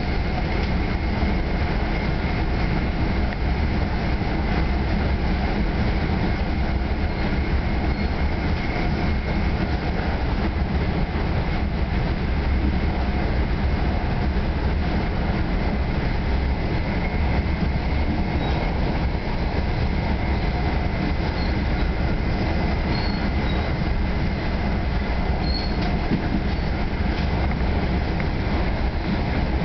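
Steady rumble and rail noise inside a New Jersey Transit Comet VI multilevel coach rolling at speed, with a faint steady high whine over it.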